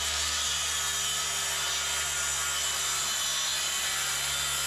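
Makita cordless circular saw cutting a long, gentle curve through a mahogany board, running at a steady speed under load.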